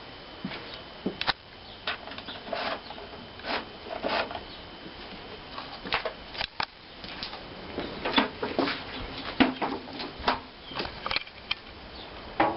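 Irregular clicks, knocks and short scrapes of hands handling a Victa lawn mower's parts, with a few sharper knocks between about six and eleven seconds in.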